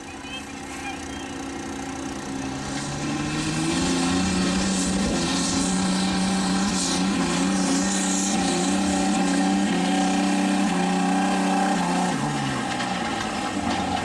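Dodge Ram's Cummins turbo-diesel at full throttle, pulling a weight-transfer sled. The engine note climbs over the first few seconds, holds steady and loud, then falls away about twelve seconds in as the pull ends.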